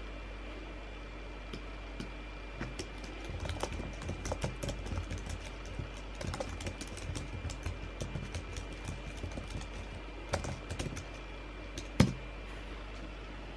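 Typing on a white low-profile computer keyboard: a quick run of light key clicks starting a couple of seconds in and thinning out, then one louder click near the end. A steady low hum runs underneath.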